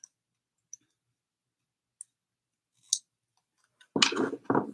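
Small decorative items being handled: a few faint clicks, a sharper click just before the three-second mark, then two louder knocks and rustles a little after four seconds as objects are set down and picked up from a table.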